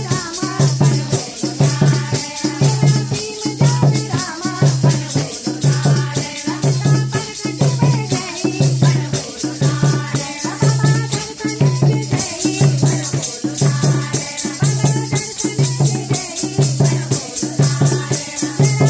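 Devotional bhajan sung by a group of women over a steady drum beat, with a rattling shaken percussion keeping time.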